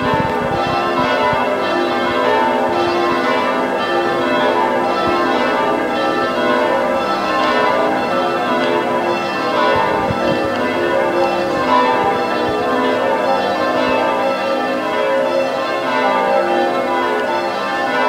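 A ring of six church bells being rung in turn, a steady unbroken stream of bell strokes.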